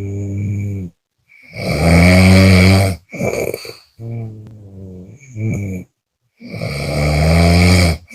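A person snoring: two long, loud, rasping snores about five seconds apart, with shorter snorting breaths between them.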